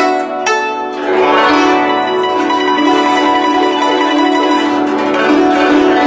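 Guzheng played solo: crisp plucked notes, then from about a second in a dense run of fast notes with many strings ringing together.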